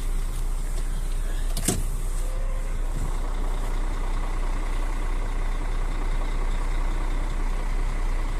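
Truck diesel engine running steadily as the tractor unit reverses slowly under a semi-trailer, with a single sharp knock about two seconds in.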